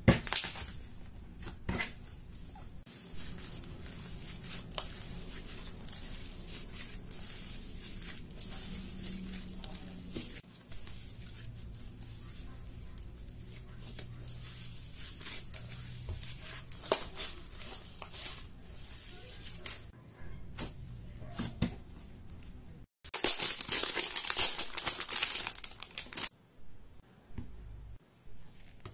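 Hands squishing, folding and stretching a grey fluffy slime made with shaving cream, giving a steady run of sticky crackles and small tearing pops. About two-thirds of the way through, the sound breaks off for an instant and gives way to a louder hissing crackle that lasts about three seconds.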